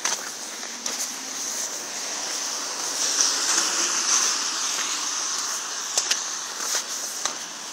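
A car passing on a wet road, its tyres hissing louder about three to four seconds in and then fading. A few footsteps crunch in snow now and then.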